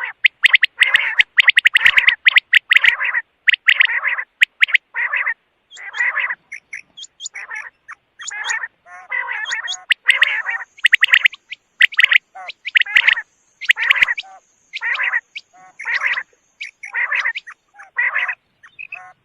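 Quail calling: a fast series of short, harsh calls in bursts, each a fraction of a second long, separated by brief silent gaps.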